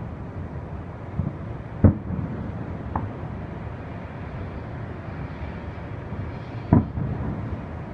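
Fireworks shells bursting in the distance: several booms, the two loudest about two seconds in and near the end, over a steady low background rumble.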